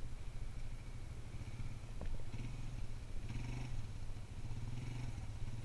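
ATV engine idling with a steady, low, fast-pulsing rumble.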